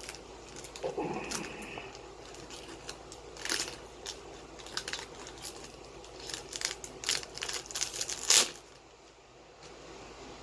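Foil trading-card booster pack crinkling and tearing open, with cards handled: a run of short crackles, the sharpest about eight seconds in.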